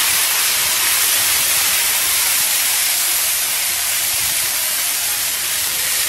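Water poured in a steady stream into a hot iron wok of oil and fried chili sauce, hissing and sizzling steadily as it hits the hot fat and boils off.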